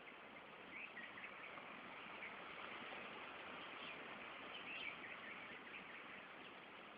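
Faint chirps of small birds, a few short high calls over a steady hiss, the clearest about a second in and again near five seconds.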